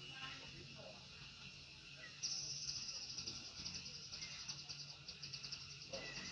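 A high, rapidly pulsing insect trill starts suddenly about two seconds in and keeps going, with a few faint short chirps around it.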